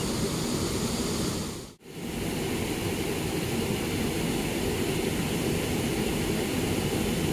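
Water pouring over a small dam spillway: a steady rushing with no let-up, broken by a brief dropout about two seconds in.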